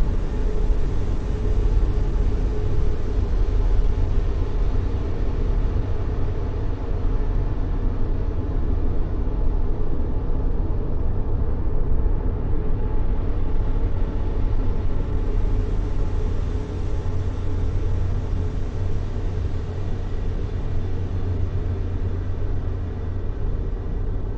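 Steady, deep rumbling noise of a sleep-noise track, with most of its weight in the low end and no tones or rhythm in it.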